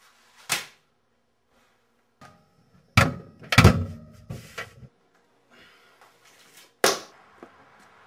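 Handling noise from a camcorder being picked up and carried: a sharp knock, then a cluster of loud thuds and knocks a few seconds later, and another sharp bang near the end.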